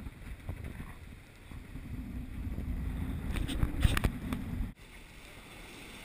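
Wind buffeting the microphone and sea rushing past a sailing yacht's hull, building to a loud rumble with a few sharp hits near the peak. It cuts off suddenly about three-quarters of the way through, leaving a quieter steady hiss.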